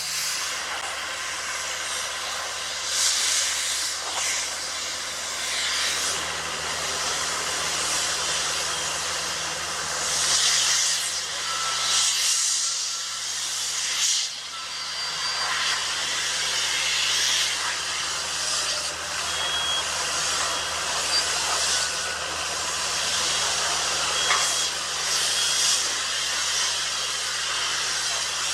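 Heavy road-paving machinery running: a steady low diesel hum under a loud hissing, rushing noise that swells and falls every few seconds.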